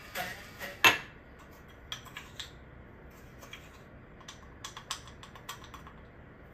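Kitchen handling noises: one sharp knock about a second in, then scattered light clicks and taps of utensils and containers on a steel worktop.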